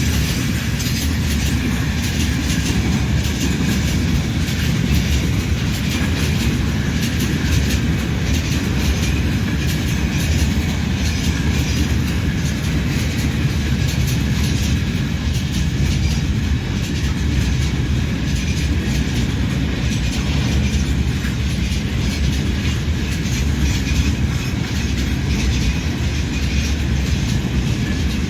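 Freight train rolling steadily past, its wagon wheels clattering over the rails.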